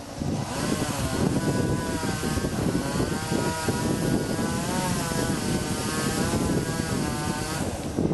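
Chainsaw running under load as it cuts a storm-felled tree, its engine pitch wavering up and down as the chain bites; the engine note drops away near the end.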